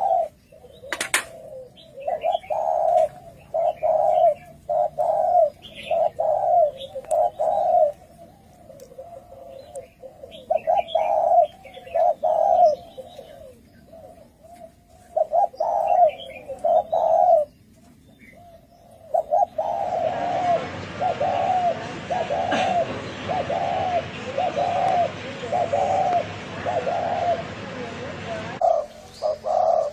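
Spotted doves cooing: repeated low coo notes in short rhythmic phrases with brief pauses between them. A steady hiss sits under the calls for the last third.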